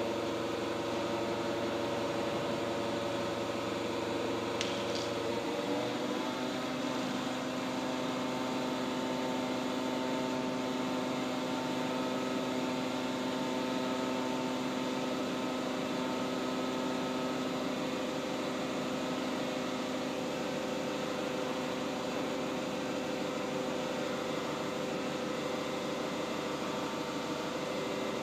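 Steady hum of running machinery with several steady tones over it. About five and a half seconds in, the low part of the hum stops and a new steady tone takes over, with a faint click just before.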